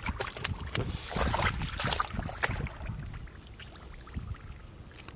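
Hands and feet splashing and squelching in shallow muddy water and wet mud: a quick run of wet slaps and sloshes, thinning out over the last couple of seconds.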